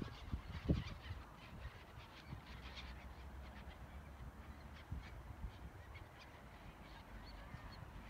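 A flock of waterbirds calling over open water: many short, scattered calls overlapping. Under them runs a low wind rumble on the microphone, with a gust about a second in.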